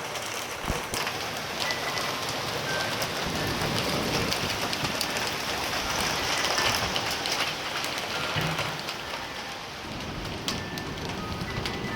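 Heavy rain pouring down, a steady hiss with sharp taps of individual drops striking close by. It grows heavier in the middle and eases a little toward the end.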